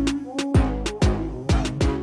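Background music with a steady drum beat, a deep bass and held notes.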